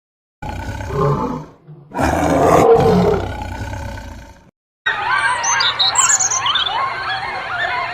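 A large wild animal roaring twice, the second roar longer and fading out. About five seconds in, it cuts to a chorus of high, rapidly repeated chirping calls.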